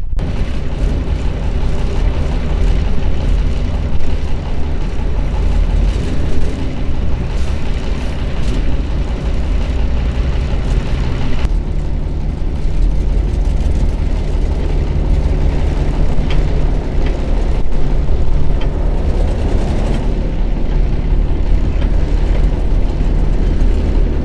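Heavy earthmoving machine's diesel engine running steadily and loudly, a deep low hum.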